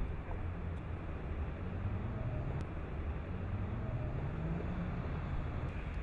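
Low, steady traffic rumble, with one vehicle's engine note rising over a few seconds in the middle.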